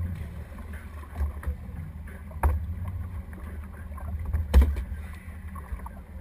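Low steady rumble of wind and boat motion on the microphone, broken by several sharp thuds on the boat's deck as a gaffed kingfish is brought aboard; the loudest thud comes about four and a half seconds in.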